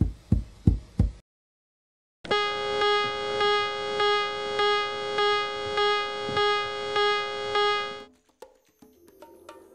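Four low thuds in quick succession, then about two seconds in a loud held horn-like musical note that swells about twice a second for some six seconds and cuts off suddenly, followed by faint ticking.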